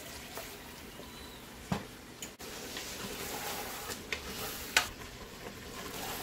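Chicken masala sizzling in an aluminium pressure cooker pan while a wooden spatula stirs it. A few sharp knocks of the spatula against the pot, the loudest about five seconds in.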